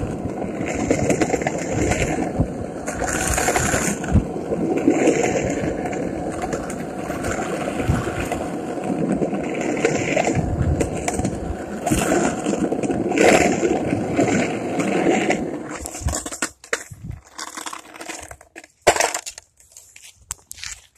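Skateboard wheels rolling over rough concrete, a steady rumble that surges and fades and then stops about three-quarters of the way through, followed by a few sharp knocks, one of them loud.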